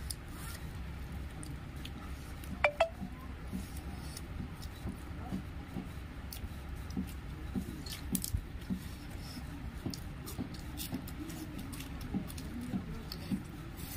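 Quiet eating sounds: small clicks and ticks of goat-head bones and meat being picked apart by hand on a plate, with chewing, over a steady low hum. A short squeak sliding down in pitch stands out about three seconds in.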